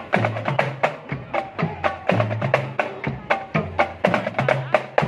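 Marching drum band percussion playing a fast, driving rhythm: sharp, crisp strikes about five a second over short, deeper drum notes.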